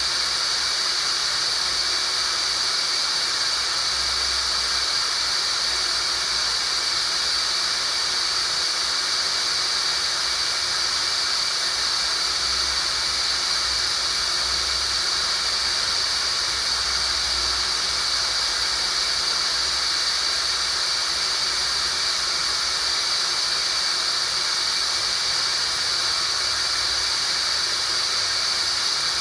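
Synthetic tinnitus sound-therapy signal: a steady, unchanging hiss with a bright high-pitched band running through it.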